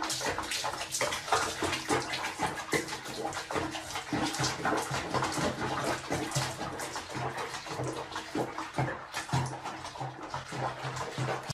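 Bath water sloshing and splashing irregularly in a small plastic basin while a cat is being bathed in it.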